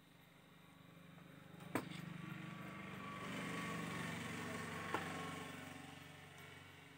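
An engine passing by, its hum growing to its loudest about halfway and then fading away, with two light clicks.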